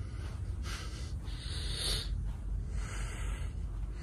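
Three hissing breaths close to the microphone, the loudest about two seconds in, over a steady low rumble.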